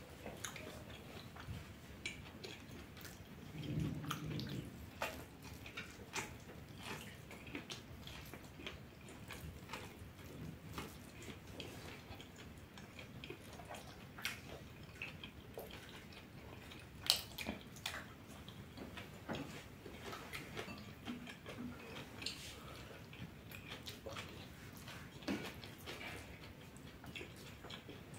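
Close-up eating sounds: wet chewing and smacking of a man eating noodles and vegetables by hand, with many small clicks and taps of fingers on a metal plate and one sharper click about seventeen seconds in. A brief low hum comes about four seconds in.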